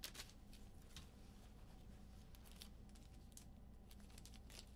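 Near silence: room tone with a low hum and a few faint, scattered clicks.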